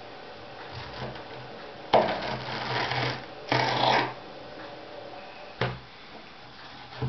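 Kitchen knife cutting through peeled pineapple on a wooden cutting board. There are two rasping stretches of slicing about two to four seconds in, and sharp knocks of the blade on the board near the start of the first and again about five and a half and seven seconds in.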